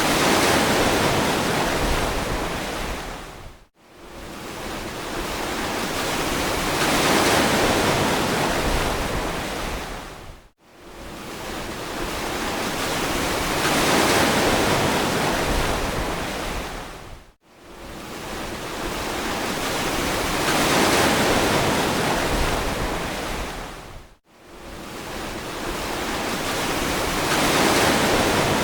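Ocean waves washing on a beach: each wave's rush of surf swells and fades over several seconds, in a regular cycle about every seven seconds. Between waves the sound cuts out abruptly for a moment, four times.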